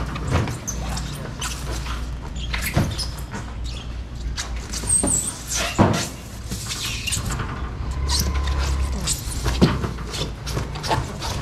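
Styrofoam boxes being handled and stacked on a truck's aluminium bed: a string of irregular knocks, thuds and scrapes, with a high squeak about five seconds in, over a steady low hum.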